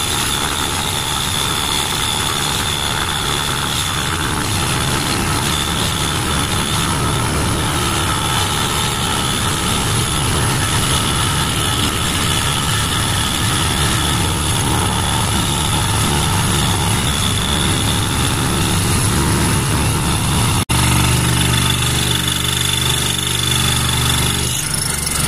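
Scroll saw running, its reciprocating blade cutting a curve through a thick red oak blank. About twenty seconds in the sound drops out for an instant and then carries on as a steadier, more even hum.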